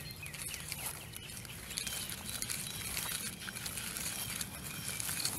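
Small birds chirping outdoors, many short, quick, falling chirps, over rustling and brushing of grass as the camera is carried low through it.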